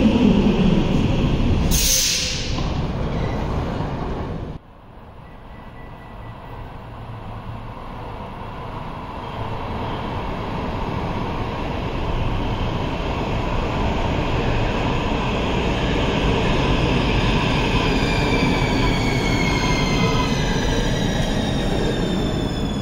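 A Helsinki metro train running along an underground platform, with a sharp hiss about two seconds in, cut off abruptly. Then another metro train comes out of the tunnel, growing louder as it approaches, and brakes into the station, its motors whining in several tones that fall in pitch over the last few seconds.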